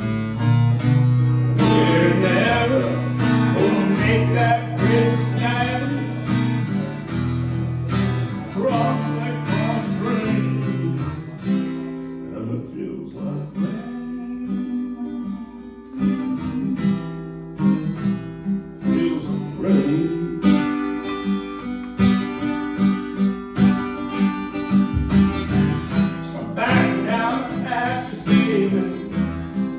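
Acoustic guitar played live, picked and strummed in a steady rhythm, with quicker, even strumming through the later part.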